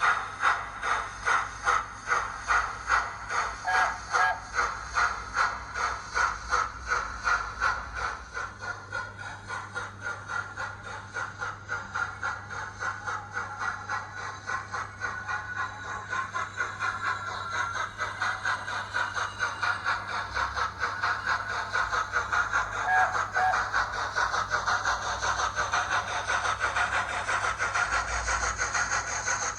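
Recorded steam-locomotive exhaust chuffs played by a model locomotive's DCC sound decoder (Zimo MX648R with an LNER A4 sound file) through a small speaker. The beat quickens steadily from about two chuffs a second to a rapid beat as the locomotive accelerates.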